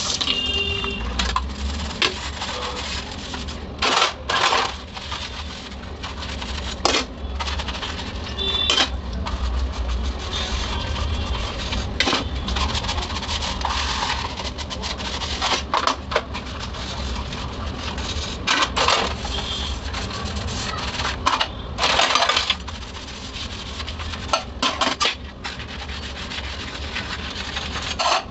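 Steel utensils being hand-washed in a stainless steel sink: a soapy sponge scrubber rubbing over steel plates and bowls, with frequent sharp clinks and clatters as the metal dishes knock together, a few left briefly ringing.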